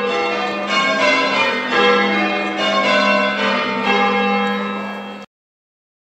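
Change ringing on a ring of eight church bells, tenor about 10 cwt in G: bells striking one after another in quick succession, their tones overlapping and ringing on. The sound cuts off suddenly about five seconds in.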